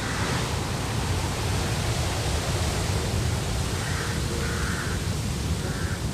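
Steady rushing noise of sea surf and wind, with a deep rumble underneath.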